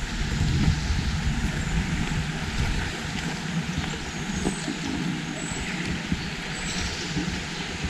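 Steady outdoor rushing noise, with a little low rumble in the first few seconds and a few faint, short high whistles in the second half.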